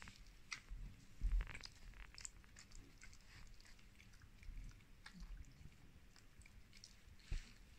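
Siberian husky gnawing a chew bone: faint, irregular crunching and clicking of teeth on the bone, with a louder knock about a second in and another near the end.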